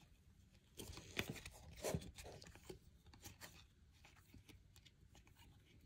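Faint rustling, scraping and clicking of glossy trading cards being thumbed and slid against one another, with a few louder scrapes between about one and two seconds in.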